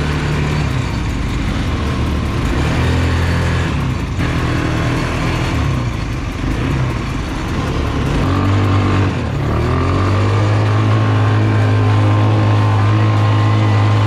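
ATV engine running under throttle on a dirt track, its pitch rising and falling as the quad speeds up and eases off, then holding a steady note from about ten seconds in.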